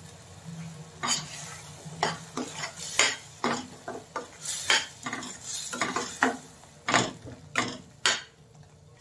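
Metal spoon scraping and clinking against a stainless steel pan as potato chunks are stirred into a thick curry gravy, in irregular strokes that start about a second in and stop near the end.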